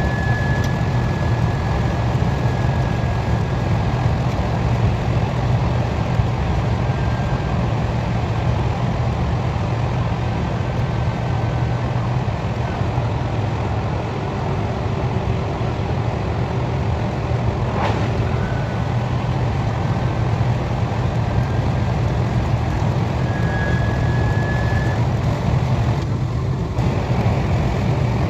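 KTX high-speed train running at speed, heard from inside the carriage: a steady low rumble with faint high whistling tones that come and go. A single short click sounds about eighteen seconds in.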